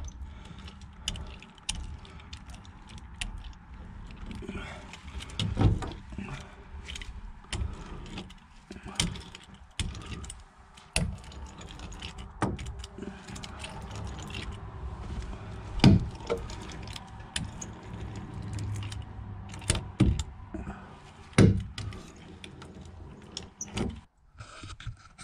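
Irregular clicks, knocks and rustles of a gloved hand working epoxy into fiberglass cloth inside a boat hull, with several sharper knocks, over a steady low hum.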